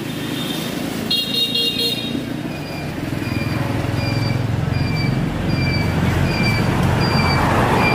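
A motor vehicle's engine running, with a short horn toot about a second in. After that comes a high electronic beep repeating about every 0.7 seconds.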